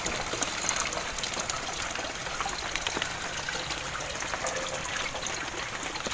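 Dissolved fertilizer solution poured from a plastic bucket into a stainless-steel sprayer tank: a steady gushing and trickling of liquid as the tank fills.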